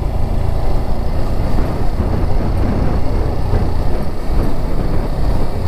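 Yamaha R15 V4's 155 cc single-cylinder engine running as the bike cruises at low speed, mixed with a steady, dense rumble of wind buffeting the microphone.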